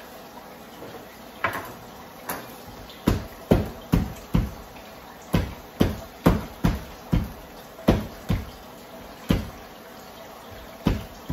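Repeated sharp knocks on a plastic cutting board as plantains are handled and cut, about fifteen in all, coming irregularly at one or two a second.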